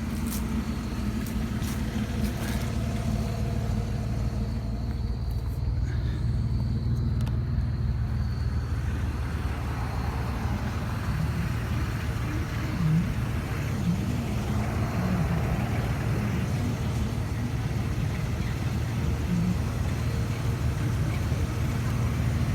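A vehicle driving, with a steady low rumble of engine and road noise.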